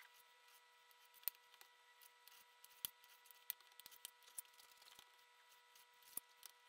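Large kitchen knife slicing raw beef into thin strips on a cutting board: quiet cutting with irregular sharp taps as the blade meets the board, the loudest about a second in and near three seconds in.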